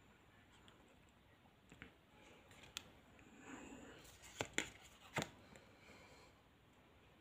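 Trading cards being handled and swapped in the hands: a soft sliding rustle of card stock and a few sharp flicks and taps, the loudest between about four and five and a half seconds in.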